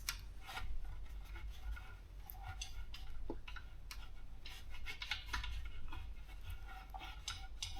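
Faint, irregular clicks and light scrapes of small metal compressor parts being handled, as a fitting is slid into place and threaded on by hand.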